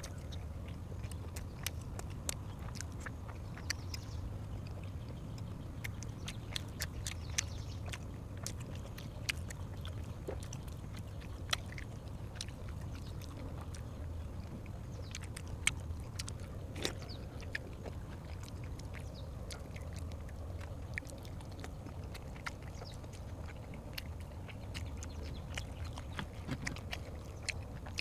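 A person chewing and eating food close to the microphone, with many short, sharp mouth clicks and smacks over a steady low hum.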